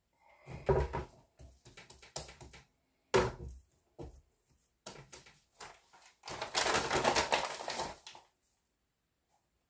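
Sourdough bread dough being kneaded by hand in a plastic bowl: irregular wet slaps and knocks of dough against the bowl, one sharper knock about three seconds in. About six seconds in, a paper bag rustles for a couple of seconds.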